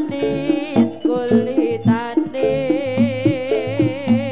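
Live jaranan accompaniment music: a high, wavering melody line over a steady pattern of drum and gong strokes.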